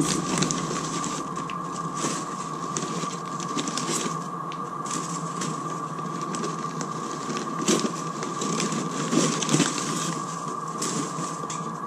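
Crumpled newspaper packing rustling and crinkling in irregular handfuls as it is pulled out of a styrofoam-lined shipping box. A steady faint tone hums underneath.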